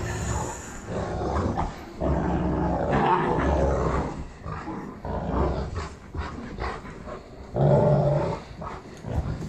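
Cane Corso dogs growling as they tug and shake a pair of jeans between them. The growling comes in rough bouts, a long one about two seconds in and the loudest shortly before the end.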